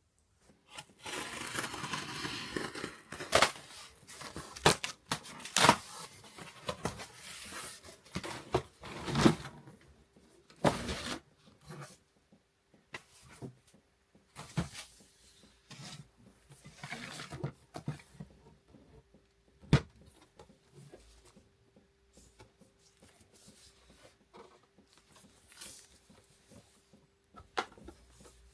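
A parcel being opened by hand: tearing and rustling of packaging, with scattered knocks and clicks as it is handled, over a faint steady hum.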